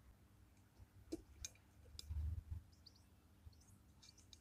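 Near silence, with a few faint clicks and a soft low thump about two seconds in, and faint high chirps later.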